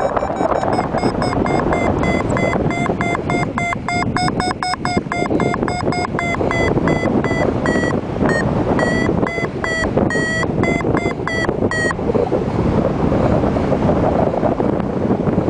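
Paragliding variometer beeping, a quick string of short beeps several a second, the vario's signal that the glider is climbing, over steady wind rushing across the microphone. The beeping stops about twelve seconds in, leaving only the wind.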